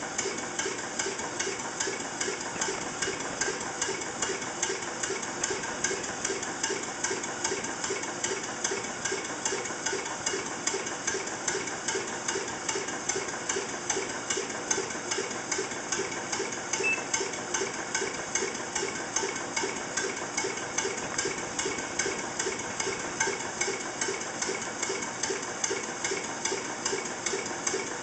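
Small antique vertical bottle-frame stationary steam engine, 3-inch bore by 4-inch stroke, running steadily. Its exhaust beats and the knock of its moving parts come in an even rhythm of about two to three beats a second.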